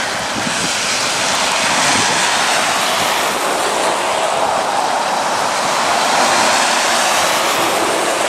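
Traffic on a rain-soaked highway: the steady hiss of tyres and spray on wet bitumen, swelling as cars and a ute come past close by.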